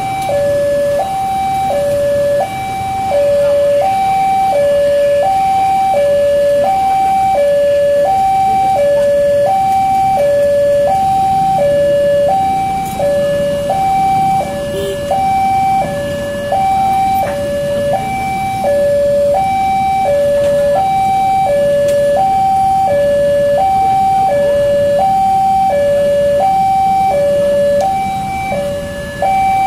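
Railroad level crossing warning alarm sounding continuously, an electronic two-tone signal alternating between a higher and a lower tone about once a second. It warns road users that a train is approaching the crossing.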